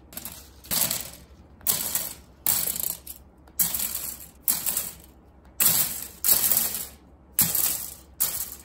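Plastic model-kit runners (sprues) set down one after another onto a pile on a wooden table, each landing with a short plastic clatter, about one a second.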